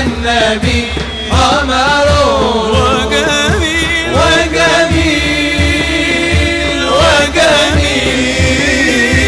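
All-male inshad ensemble singing a Middle Eastern devotional melody in long, ornamented, wavering notes over a steady frame-drum beat.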